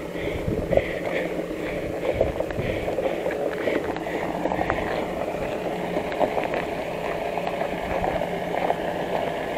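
Mahindra Bolero Camper pickup's diesel engine running steadily at low speed, a low hum with a constant crunching of gravel and stones under it.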